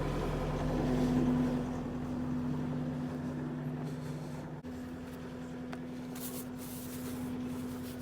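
Kubota SSV65 skid steer's diesel engine running steadily with a droning hum. About halfway through the sound breaks off for an instant, then goes on a little quieter with the lower part of the hum gone.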